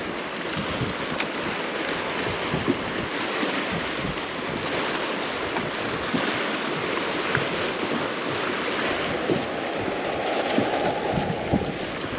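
Wind buffeting the microphone over small waves lapping against a boat's hull: a steady rushing noise with irregular low knocks of water.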